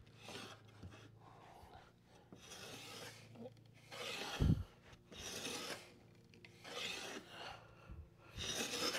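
Hand plane pushed across a board against the grain in a series of rasping strokes, each under a second long, with a dull knock about four and a half seconds in. The chip breaker is set so close to the iron's edge that the plane scrapes rather than cuts, and the dust can't escape the mouth.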